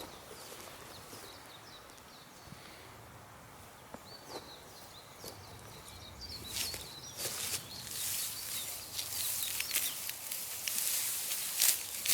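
Small birds chirping faintly in the first half; from about six and a half seconds in, close, repeated crisp rustling and snapping of grass and weeds being cut by hand, growing louder toward the end.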